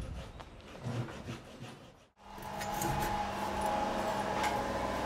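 Faint quiet background, then from about two seconds in, carpentry sounds on a timber frame: a power tool running steadily, with clicks and wood scraping.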